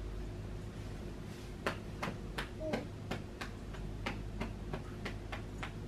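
A string of light, sharp clicks, two or three a second, beginning about one and a half seconds in, over a steady low hum. A brief faint squeak comes near the middle.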